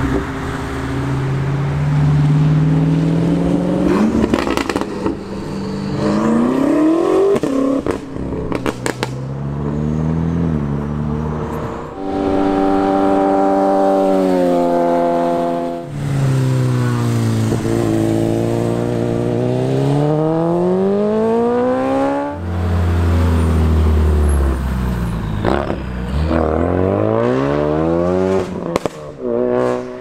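Sports car engines accelerating and revving as cars drive past, the pitch climbing and dropping several times, with one note held for a few seconds before falling away. There are a few sharp cracks in between.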